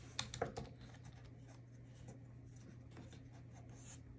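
Faint scratching and clicking of a kitten's claws and paws on a desk, a quick cluster in the first second and a few light ticks after, over a low steady hum.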